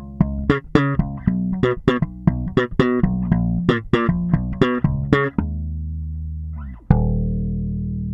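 Epiphone Thunderbird Gothic four-string electric bass played fingerstyle with a flat tone: a quick run of plucked notes, then two notes let ring, one from about five and a half seconds in and another from about seven seconds in.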